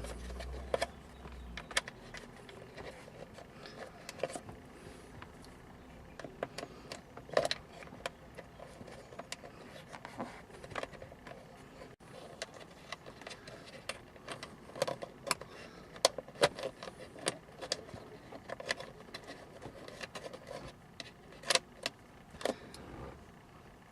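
Irregular small clicks, taps and clatters of aluminum hinge pieces being worked into a plastic Porsche 996 center console lid, a piece that will not go in easily. Short sharp knocks come in clusters, the loudest around the middle and near the end.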